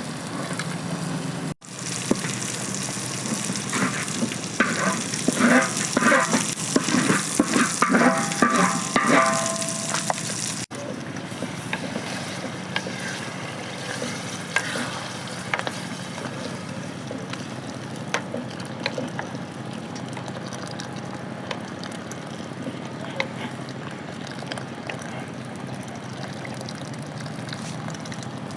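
Food frying in a pan with a steady sizzle. For the first several seconds a utensil stirs and scrapes against the pan with repeated clinks, then the sizzle goes on with only an occasional tap.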